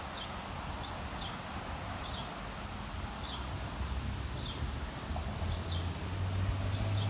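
A small bird calling over and over, short high chirps that slide down in pitch, about one or two a second. Under it runs a steady low rumble that grows louder near the end.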